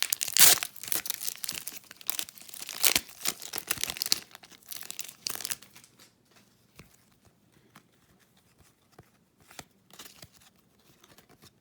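Wrapper of a hockey card pack crinkling and tearing open, busiest in the first five seconds or so, then sparse light ticks as the cards are handled.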